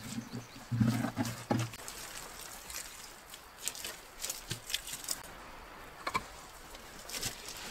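Hands digging out soil and stones at the base of a dry-stone wall: a low scrape about a second in, then scattered light clicks and scrapes of stone and earth.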